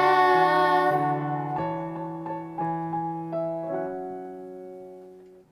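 Closing bars of the song's instrumental accompaniment on a piano-like keyboard. A few held chords change slowly and fade away, then cut off at the very end.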